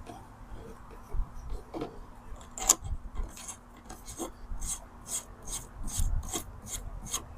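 Short rasping, rubbing strokes, about two or three a second through the second half, as hands work a pressure washer's hose fitting and seal. A sharp knock comes a little before the middle.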